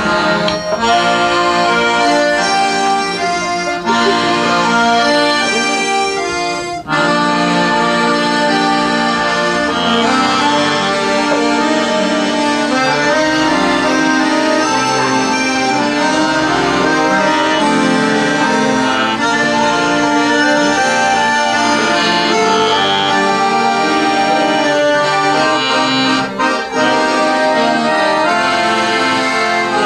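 An accordion ensemble playing music in full, held chords, with a brief break in the sound about seven seconds in.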